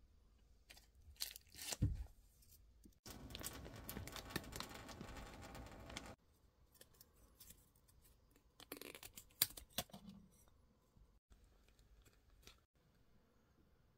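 Crinkling and rustling of a foil-lined instant-noodle bag and plastic sauce sachets, with sharp cracks of the packaging and a sachet being torn open. For about three seconds near the start, water pours steadily out of the noodle bag into a stainless steel sink.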